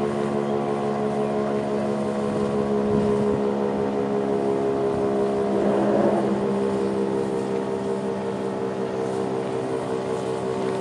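Federal Signal STH-10A rotating outdoor warning siren sounding a steady chord at held pitch, growing louder about halfway through and then easing off.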